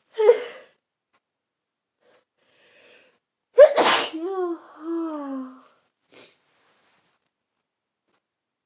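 A woman sneezing twice from a head cold: a sharp sneeze just after the start, then a short breath in and a louder second sneeze that trails off into a drawn-out, wavering vocal groan. A small sniff or puff of breath follows about two seconds later.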